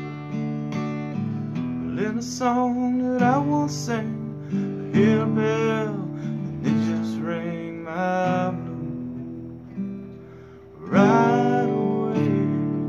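Seagull acoustic guitar strummed under a Hohner harmonica played in a neck rack, the harmonica notes bending up and down. About eleven seconds in a last strummed chord is left to ring and fade out.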